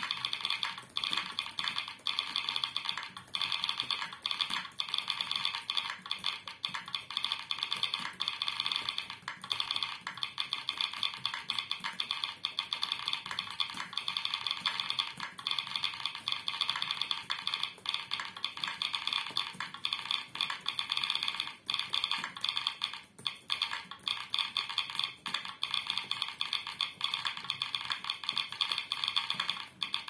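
Fast, continuous typing heard as simulated keyboard key sounds played by a keyboard-sound website (kbs.im) in response to each keypress, rather than the laptop's own keys. The clicking runs almost without a break, with a couple of short lulls about two-thirds of the way in.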